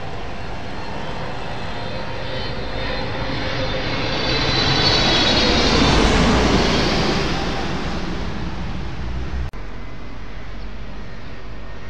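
Emirates Boeing 777 on landing approach passing low overhead: the jet engine noise swells to a peak with a whine that falls in pitch as it passes, then fades. It cuts off abruptly near the end, leaving a steady low background rumble.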